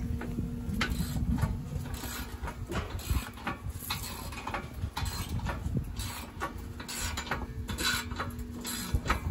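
Hand tools working bolts on the bare steel frame of a John Deere Gator XUV 550: irregular metallic clicks and clinks from a wrench and ratchet, with a faint steady hum behind.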